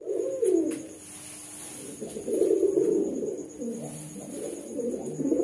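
Domestic pigeons cooing: low, rolling coos repeated in several bouts, one bird with its neck feathers puffed out as it calls.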